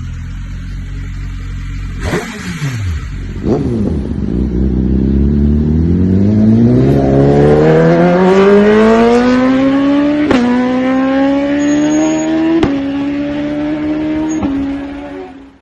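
BMW S1000RR HP4 inline-four through an Akrapovič exhaust: after a low running note and two falling swoops in pitch, the revs climb in one long steady rise. Two brief dips with a sharp click come at the gear changes, and the note then holds high until it cuts off suddenly.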